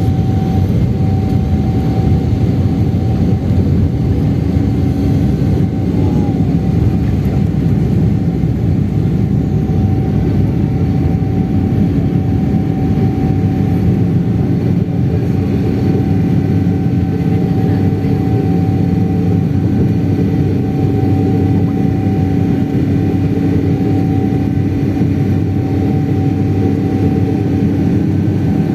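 Passenger jet taking off: a loud, steady rumble of engines and rushing air, with two steady hums running through it.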